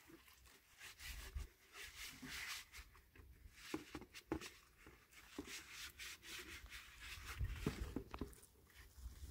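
Faint rustling with many small scattered clicks and taps from a meal being eaten by hand off plates on a plastic sheet.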